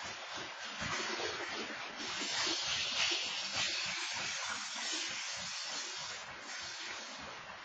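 Freight train coal hopper cars rolling past: a steady rushing hiss of steel wheels on the rails, swelling a little a couple of seconds in, heard through a security camera's microphone.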